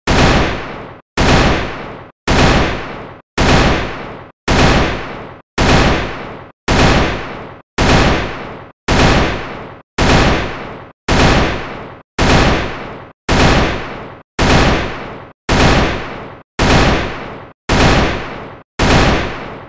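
AK-47 rifle gunfire sound effect played over and over, about once a second: each one starts sharply, fades, and cuts off abruptly just before the next.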